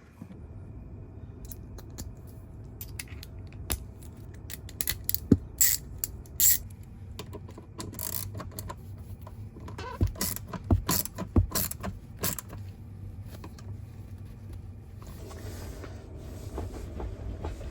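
Steady low hum inside a Tesla Model Y's cabin, with a run of sharp clicks and knocks through the middle, some of them loud.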